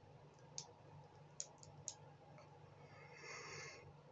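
Near-silent room tone with a few faint, sharp clicks in the first two seconds, then a short breathy rush of air through the mouth about three seconds in, as a yawn begins.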